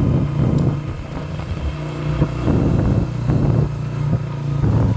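Motorcycle engine running steadily while being ridden, a low even hum with small knocks throughout.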